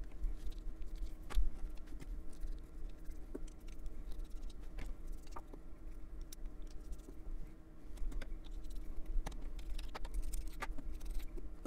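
Scattered small clicks and taps of fountain pen parts being handled as a Jinhao 100 Centennial is taken apart and its section and finials swapped: caps, barrels and sections knocking lightly against each other and against fingers.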